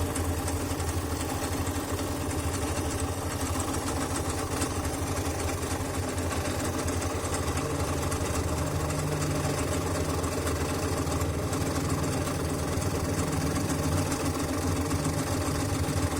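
Scroll saw running steadily, its fine blade working up and down as it slowly cuts along a letter pattern in a piece of wood.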